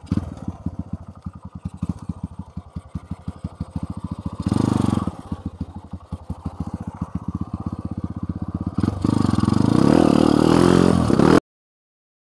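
Dirt bike engine running at low revs with separate, pulsing firing beats, opened up briefly about four and a half seconds in. Near the end it revs higher with a rising pitch, then the sound cuts off suddenly.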